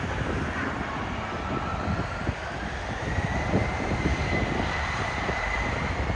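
Jet airliner engines spooling up, a whine that rises steadily in pitch over a few seconds and then holds, over a low rumble of engine noise, as a plane begins its takeoff.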